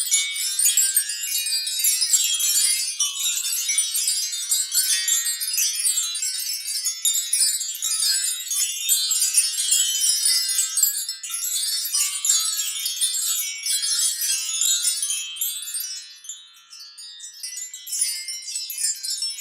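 Cartoon sound effect of dense, high tinkling chimes, like a magical sparkle, with a short lull near the end before the tinkling starts again.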